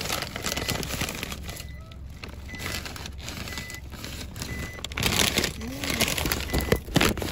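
Plastic snack packet crinkling and rustling over a steady low rumble of car road noise.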